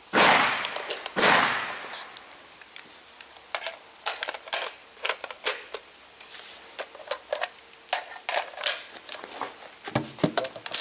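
Short metallic clicks and clatter of an FN FAL magazine and rifle being handled, ending about ten seconds in with a heavier knock as the magazine is seated in the magazine well. Two brief rustling noises open it.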